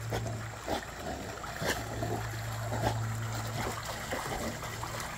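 Pool water sloshing and trickling as dogs swim and one climbs out, water streaming off its coat, with a few small splashes. A low steady hum runs under it in stretches.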